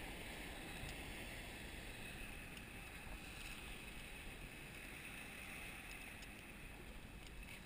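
Faint, steady wind and water noise on a small boat at sea, with a few faint ticks.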